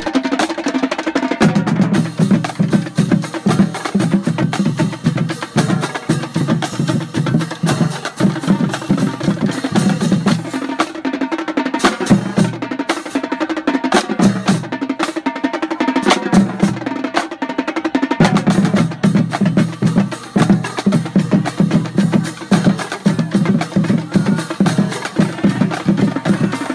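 Drum-driven percussion music: a fast, steady rhythm of snare and bass drum strokes with rolls.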